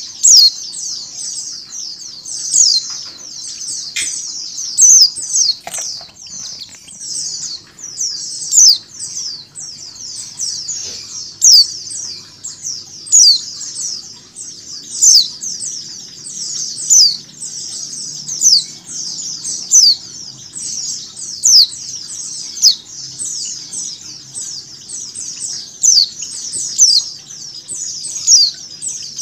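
Dense, unbroken chirping of many white-eyes (pleci), a flock chorus of short, high, falling chirps overlapping one another. Louder single calls stand out from it about every one to two seconds: a female white-eye calling.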